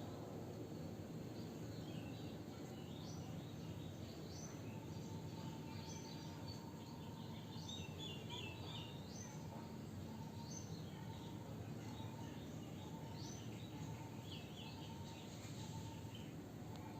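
Outdoor ambience: a steady low background hiss with small birds chirping on and off in short high calls, and a faint evenly repeated note in the background from about five seconds in.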